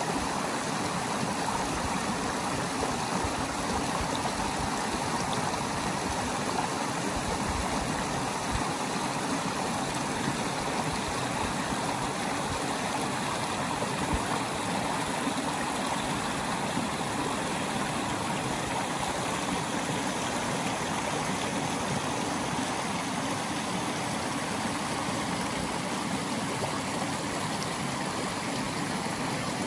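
Small rocky brook flowing over boulders and spilling down little cascades: a steady rush and splash of running water.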